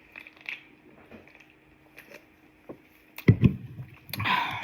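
Close-up eating sounds: soft chewing clicks, then a loud cluster of deep thuds about three seconds in and a short noisy burst near the end.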